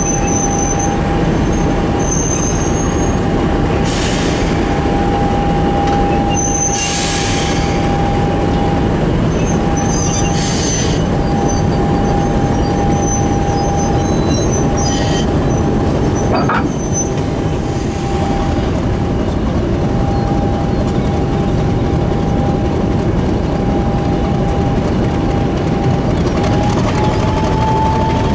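A diesel train running on the line, with a loud, steady rumble of wheels and machinery. A constant whine runs through it and rises slightly in pitch near the end, and brief high-pitched wheel squeals come and go.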